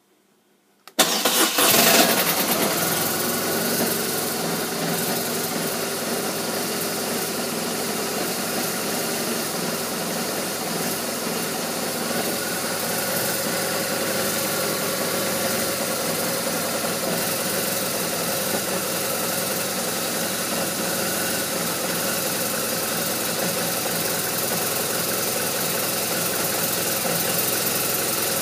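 BMW R1200RT's boxer flat-twin engine started about a second in, flaring briefly before settling into a steady idle, which the owner calls rough.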